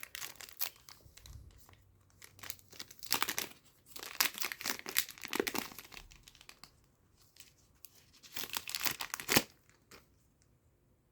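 Foil booster pack of trading cards being torn open and crinkled in the hands: irregular crackling and ripping, loudest in two bursts, then a sharp rip near the end before it goes quiet.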